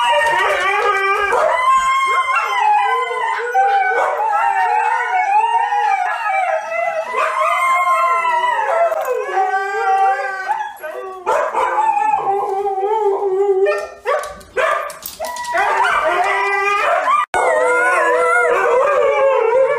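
Several huskies howling together in overlapping, wavering howls, with a sudden brief break near the end.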